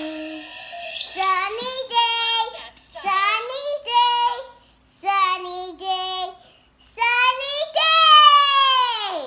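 A young girl singing in four short phrases. The last phrase is a long held note that slides down in pitch at the end.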